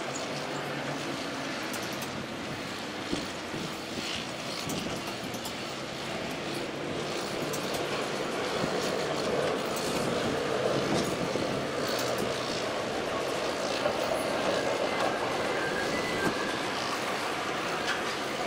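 Heavy diesel machinery running steadily, a little louder in the second half, with scattered metallic clinks over the engine noise.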